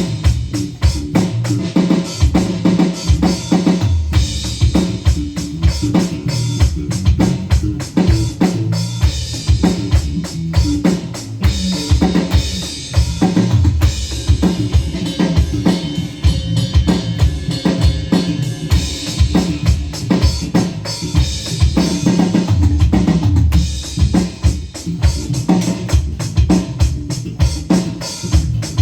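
Drum-heavy music with a steady, fast beat and strong bass.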